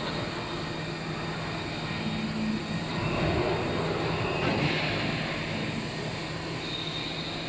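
WMT VMC1580L vertical machining center milling a clamped metal workpiece under flood coolant. The spindle and cutter run with a steady low hum under a hiss of cutting and coolant spray, without a break.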